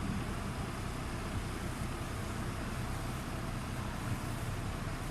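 Hosokawa Nauta conical screw mixer running: a steady mechanical drone with a low hum from its drive.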